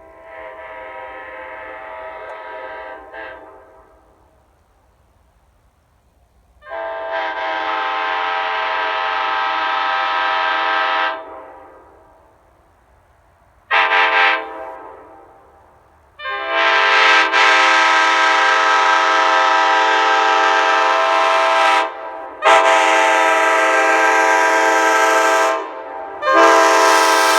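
Nathan Airchime K5LA five-chime air horn (80s WideFont casting) blowing a series of blasts, each a steady chord: a soft first blast, a longer louder one, a brief toot, then three long loud blasts separated by short breaks.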